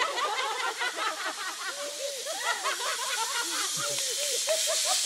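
Zip wire trolley running along the steel cable with a steady hiss that grows louder toward the end as the rider comes in to land.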